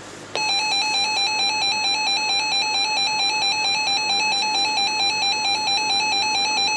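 Weather radio alert tone: a loud, steady electronic alarm tone that switches on sharply about a third of a second in after faint static hiss, pulsing fast and evenly. It is the attention signal that announces an incoming weather warning.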